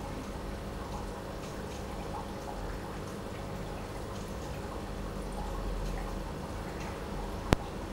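Aquarium water trickling and dripping over a steady low hum from the tank's running equipment, with one sharp click near the end.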